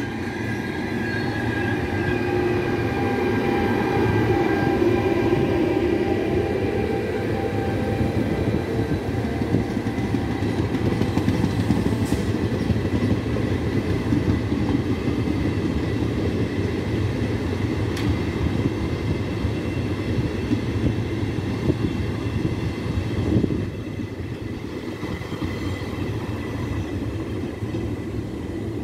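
Electric-locomotive-hauled regional passenger train running past on the platform track: a steady rumble of wheels on rail with some clickety-clack, with a whine over the first several seconds. The sound eases a little near the end as the last car goes by.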